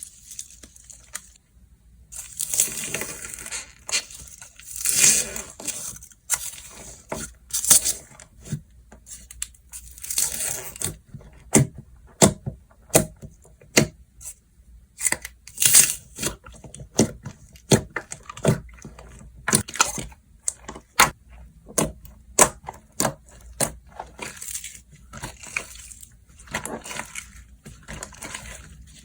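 Slime being stretched and squished by hand: a few drawn-out hissing stretches, then a run of sharp pops and clicks about one or two a second through the middle, with more stretching near the end.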